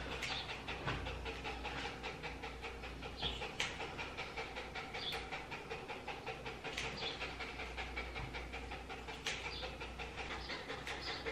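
Muzzled Bichon Maltese panting fast and steadily, about four breaths a second. A few sharper snips of grooming scissors come a few seconds apart.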